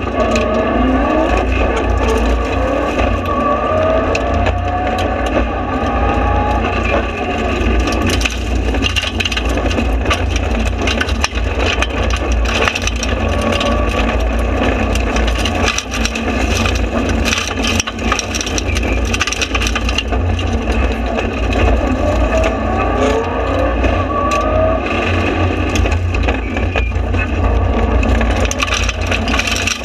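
Mitsubishi Lancer Evo rally car's turbocharged four-cylinder engine under hard acceleration, heard from inside the cockpit, its pitch rising through the gears twice (early on, then again a little past two-thirds of the way in). Gravel stones rattle and crack against the car's underbody throughout.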